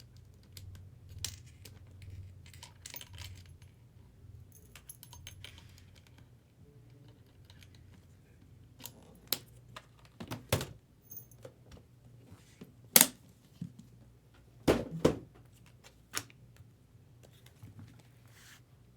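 Small metal keys jingling and clinking as they are handled, among scattered light clicks and a few sharp knocks, the loudest about 13 seconds in and a close pair around 15 seconds.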